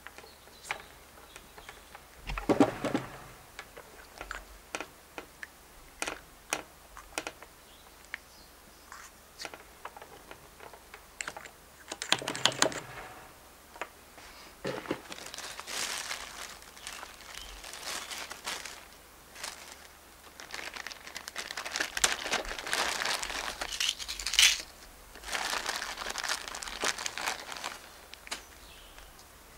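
Hands handling small loading gear and the raised breech chamber of a Kammerlader rifle: many scattered small clicks and taps, with two louder brief rustles early on. Then long stretches of plastic crinkling and rustling as a zip bag of lead bullets is opened and rummaged.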